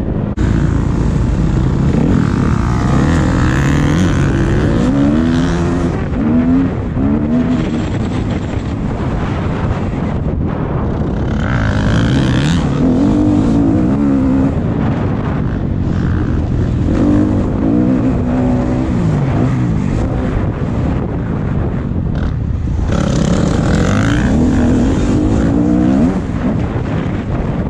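Motocross bike engine revving hard and easing off again and again, its pitch climbing and dropping as the bike is ridden through the gears, loudest about three, twelve and twenty-four seconds in.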